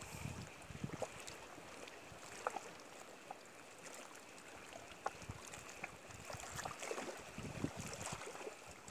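Wind buffeting the microphone over faint lapping water, gusting near the start and again late on, with a few light scattered clicks.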